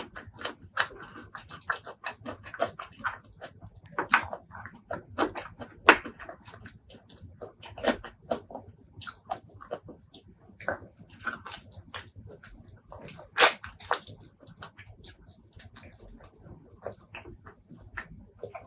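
Close-miked eating sounds: wet chewing and lip smacking on spicy pork leg curry and rice, a quick irregular run of smacks and clicks.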